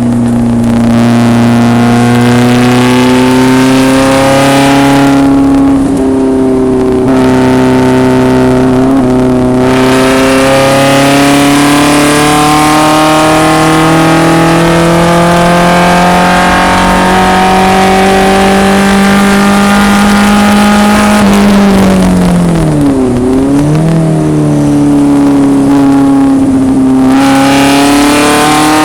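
1974 BMW 2002 racecar's four-cylinder engine at racing speed, pulling under load with its pitch climbing steadily for about ten seconds at a time. It eases briefly a few seconds in, and about 22 seconds in the revs drop sharply and come back up, as when braking and downshifting for a corner, before it pulls again near the end.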